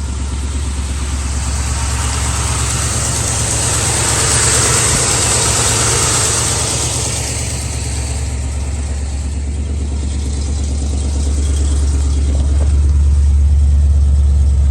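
Ford Mustang's carbureted engine idling, not quite smoothly: a slight tremble from a misfire, which turns out to be a spark plug wire arcing to the header. A rushing hiss swells and fades in the middle.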